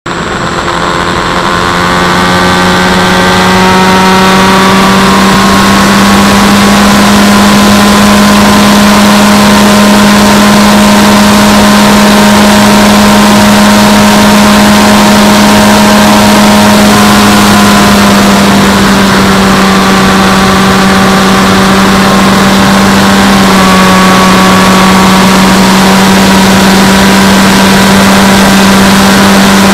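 FX-79 flying wing's electric pusher motor and propeller running in flight, a steady hum over rushing wind noise, heard through the onboard action camera. It fades up over the first few seconds and shifts slightly in pitch a couple of times later on.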